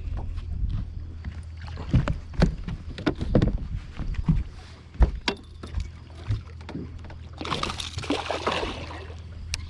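A hooked bass being fought from a boat: repeated knocks and clicks of rod and reel handling over a steady low hum, then a noisy rush lasting about a second and a half near the end.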